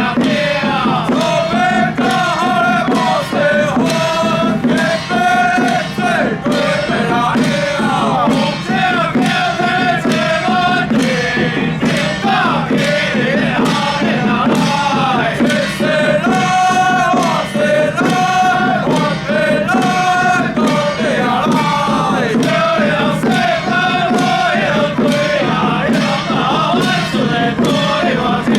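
A Taiwanese folk ritual troupe (xiao fa tuan) chanting in unison, the voices rising and falling in a sung ritual melody over steady, regular percussion strikes.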